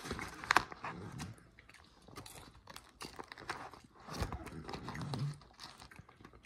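Paper microwave-popcorn bag rustling and crinkling as a hand reaches in, with close-up chewing and crunching of popcorn.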